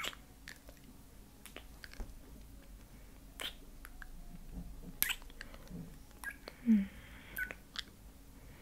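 Close-miked mouth sounds: soft, scattered wet lip and tongue clicks, with one short murmured hum from the woman's voice near the end.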